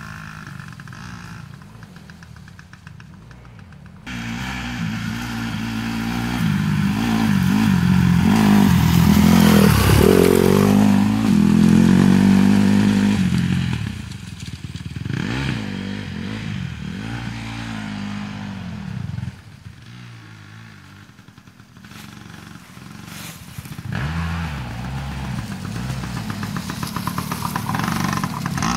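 Dirt bike engines revving up and easing off on a trail, their pitch rising and falling. They are loudest from about a quarter to halfway through, dip a little after two-thirds, and build again near the end.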